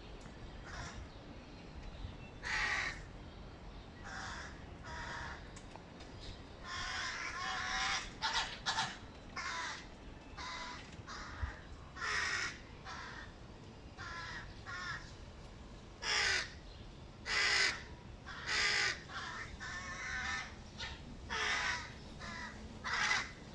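Hooded crow fledglings begging for food with many short, harsh caws, some in quick pairs. The loudest calls come about two-thirds of the way through.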